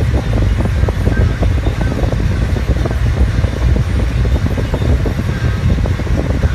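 Steady low rumble of tyre and wind noise heard inside a car's cabin at freeway speed on concrete pavement.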